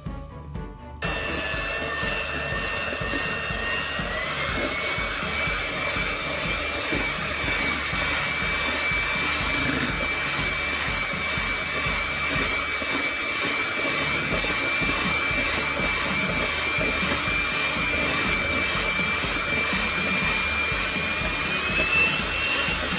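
Electric hand mixer switching on about a second in and running steadily, its beaters whisking an egg into creamed butter, sugar and banana in a stainless steel bowl. The motor's whine steps up slightly in pitch a few seconds in and again near the end.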